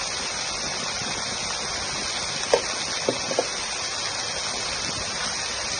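Corn kernels sizzling steadily in a frying pan, with three short clinks about halfway through.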